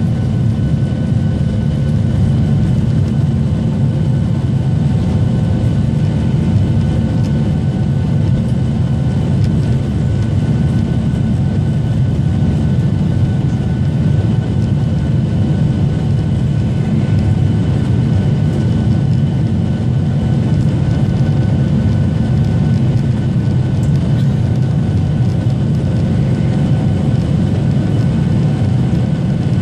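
Jet airliner's engines and airflow heard from inside the passenger cabin during the climb after takeoff: a steady, loud low rumble with a few faint steady whining tones above it.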